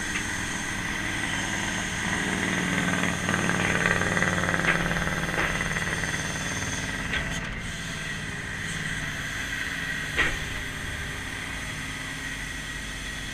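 Grapple truck's engine and hydraulic system running under load as the boom and grapple are brought in, swelling a couple of seconds in and easing off after about six seconds, with a steady high whine and a few sharp clicks. The hydraulics are cold, which the operator says makes them run less smoothly.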